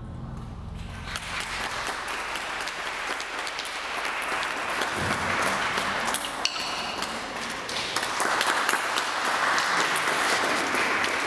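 Audience applauding, growing louder about eight seconds in, with a brief high ringing tone about six and a half seconds in.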